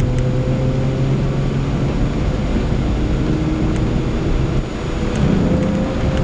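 Mazda MX-6 engine running steadily while driving, heard from inside the cabin, with a steady engine drone and tyre noise from the wet road.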